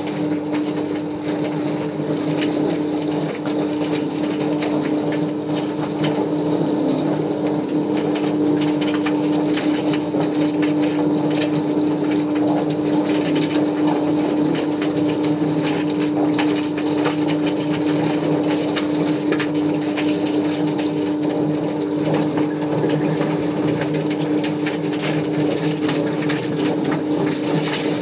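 Stainless-steel drum chicken plucking machine running: a steady motor hum with an irregular clatter as the birds tumble against the plucker fingers.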